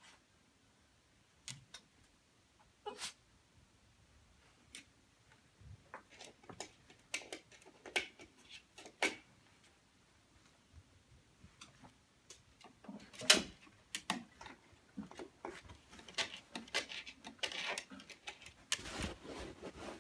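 Two small dogs, a terrier mix and an Aussie-mix puppy, scrabbling and nosing at a cube shelf: scattered clicks, taps and scrapes, sparse at first and busier in the second half, with one sharp knock about two-thirds through.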